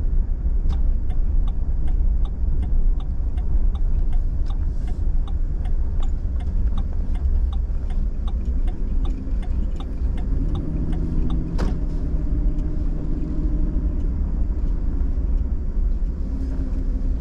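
Car driving, a steady low rumble of engine and road noise, with an even ticking about twice a second. A steady hum joins in about ten seconds in, and there is one sharp click shortly after.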